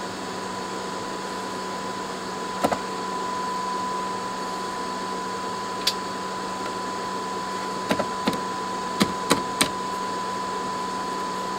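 HH Electronics SM200 mixer amp's speaker output with its digital effects unit switched in: a steady hiss and hum with a thin steady high tone. Sharp clicks and pops come through as the effects unit's push buttons and knobs are worked, once about three seconds in, again near six seconds, and as a quick cluster of five between eight and ten seconds in.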